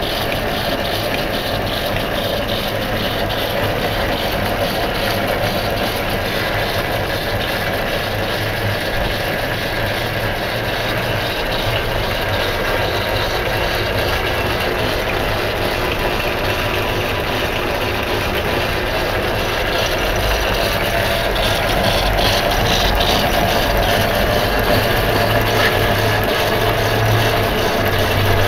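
Drummond round-bed lathe running steadily under its belt drive: a continuous mechanical hum and whir from the spinning spindle, belt and pulleys. The low hum grows a little louder about twenty seconds in.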